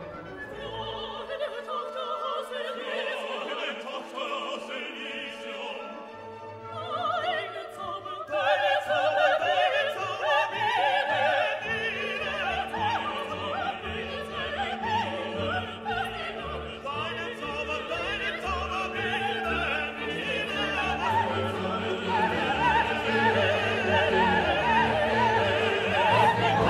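Classical background music: operatic singing over an orchestra, getting louder about eight seconds in.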